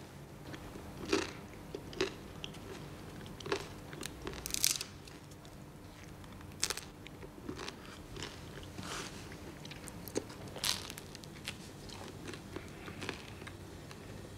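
Crusty bread and cheese being bitten and chewed close up: irregular crisp crunches and mouth sounds, a few bites standing out louder.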